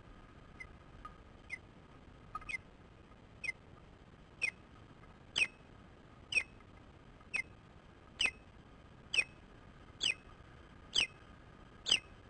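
Osprey calling: a series of short, sharp, high whistled chirps, about one a second, growing louder over the first few seconds.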